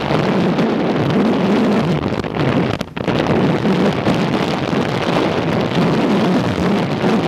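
Wind buffeting the microphone over a boat's motor running steadily, with a brief drop in the noise about three seconds in.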